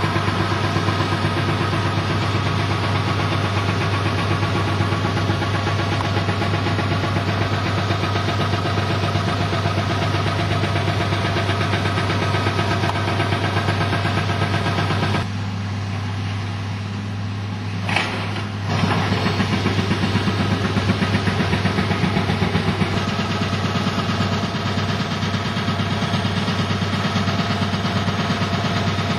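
An engine running steadily at a constant speed. For about three seconds in the middle it is quieter, with a single click, before it resumes.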